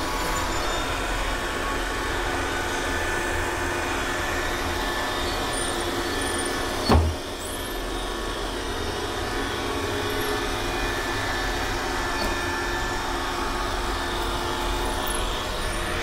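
iRobot Roomba 960 robot vacuum running, a steady hum of its vacuum motor and brushes with several held tones. A single thump about seven seconds in.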